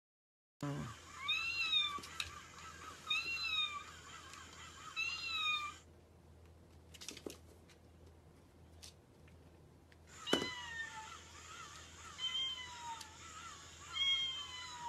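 Cat meowing: three drawn-out meows about two seconds apart, each rising then falling in pitch, then after a few faint clicks three shorter meows that slide downward in pitch.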